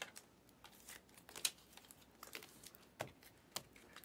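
Faint rustling and clicking of trading cards and plastic card sleeves being handled and sorted, with a few sharp clicks, the loudest about a second and a half in.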